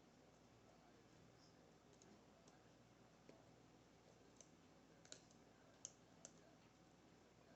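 Faint, scattered ticks of a hook pick working the pins inside an Assa Maximum+ lock's keyway. The three plainest ticks come a little past halfway.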